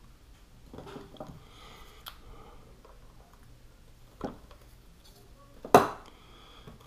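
Quiet handling sounds of hands working a glued arm-brace piece, with a small click about four seconds in and a sharp knock near the end, the loudest sound, as of a tool or part set down on a hard surface.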